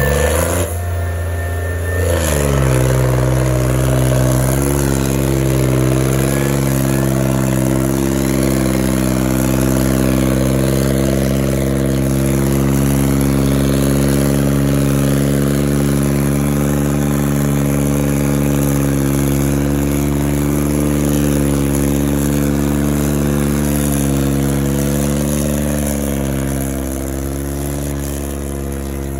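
John Deere tractor's diesel engine labouring at high revs under heavy load as it drags disc harrows through soil. It gives a steady drone that rises and falls slightly in pitch, settling in about two seconds in and easing a little near the end.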